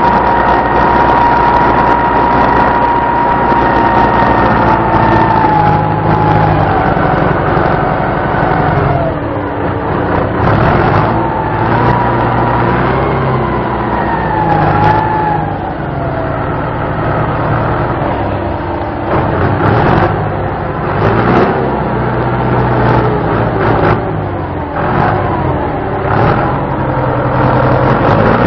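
A car engine revving hard with its wheels spinning, trying to drive out of deep mud. A high steady whine falls away after several seconds, then rises and falls again as the revs change, and short knocks and splatters follow in the second half.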